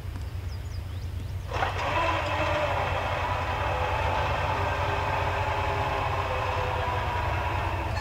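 Locomotive air horn, a multi-chime Nathan Airchime K5LA, sounding one long blast that starts about a second and a half in and is held for over six seconds as the train approaches a grade crossing.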